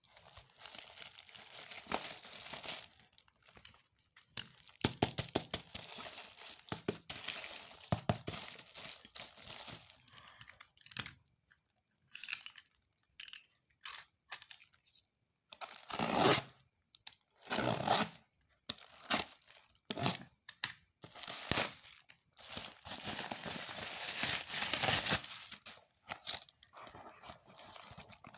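Doll packaging being torn open and crinkled by hand, in irregular rustling bursts with brief pauses between them.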